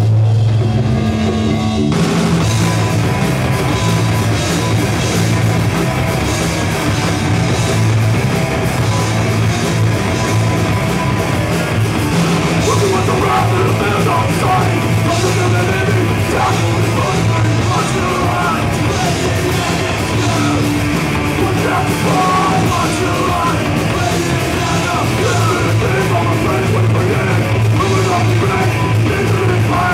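Hardcore punk band playing live: distorted bass guitar, electric guitar and drum kit at full volume, the sound filling out with drums and cymbals about two seconds in.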